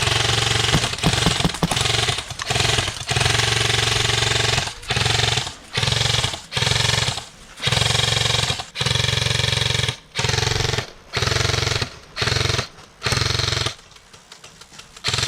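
Airsoft rifle firing about a dozen short full-auto bursts in quick succession, as suppressing fire on a pinned opponent; the firing stops about a second and a half before the end.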